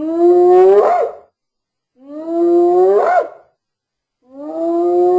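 Hyena calling: three long, rising calls about two seconds apart, each ending in a quick upward flick in pitch.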